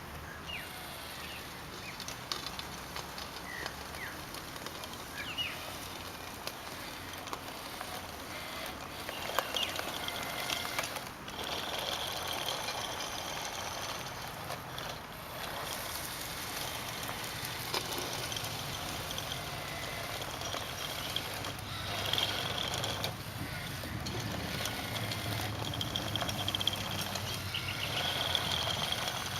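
Radio-controlled bulldozers running, their small geared electric motors whining in short bursts over a steady noisy background with scattered clicks.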